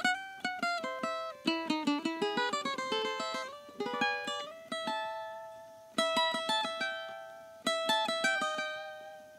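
Cavaquinho played solo. A quick picked melodic run moves down and back up over the first few seconds, then chords are struck about six and about eight seconds in, each left to ring and fade.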